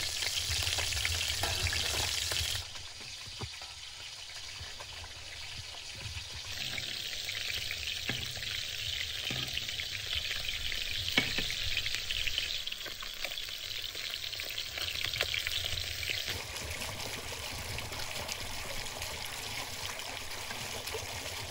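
Beef brain pieces deep-frying in a pan of hot oil: a steady sizzle, with a few light taps of a metal spatula as the pieces are turned. The sizzle drops a little about three seconds in.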